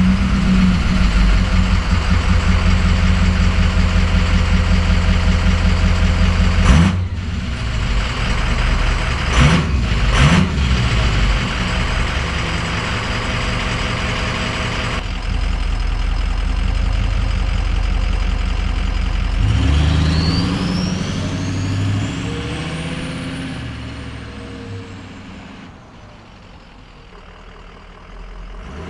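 Ford F-350's 6.0 Power Stroke V8 turbo-diesel on its stock exhaust, running at a loud idle just after a cold start, with a few sharp clicks about 7 and 10 seconds in. Later a whine rises and then falls as the engine sound fades away.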